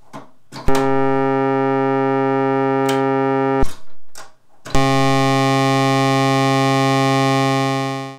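Steady pitched synthesizer drone running through a Serge Triple Waveshaper, broken twice by patch-cable clicks and short dropouts as cables are plugged in. After the clicks about five seconds in, the tone comes back much brighter, with far more high overtones, as a further waveshaper stage patched in series adds a fold. The drone cuts off suddenly just before the end.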